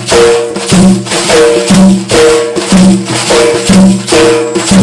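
Instrumental accompaniment with a busy tambourine-like percussion beat under held melodic notes. A low note returns about once a second in a repeating figure.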